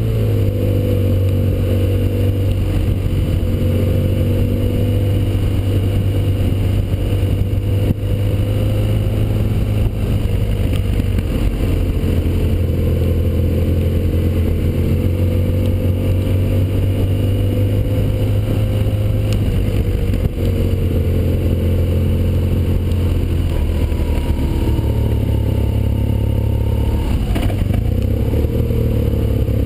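BMW R1200GS Adventure's boxer-twin engine running on the move, its note rising and falling with the throttle, with wind rush on the camera. The pitch shifts near the end as the bike slows for a bend.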